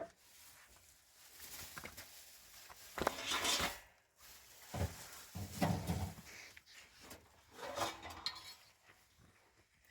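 Dishes and cooking utensils clattering and scraping in several short bouts, loudest about three to four seconds in and again near six seconds.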